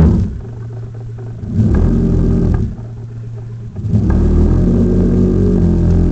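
Motor of a radio-controlled Dumas Donzi Z65 model boat, heard from on board. It speeds up in a short spurt about a second and a half in, drops back, then runs steadily from about four seconds in.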